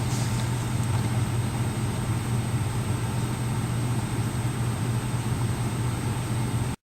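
Steady low hum with an even hiss of background noise and no other events, cutting off suddenly near the end.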